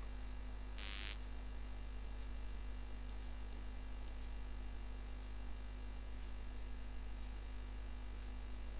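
Steady low electrical mains hum in the recording, with a brief hiss about a second in.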